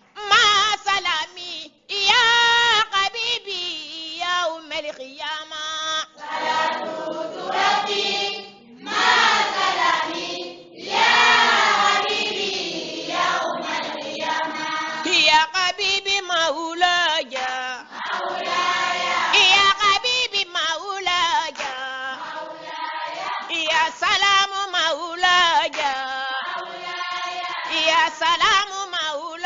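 Voices singing an Islamic devotional chant in long, wavering, ornamented phrases with short breaks between them.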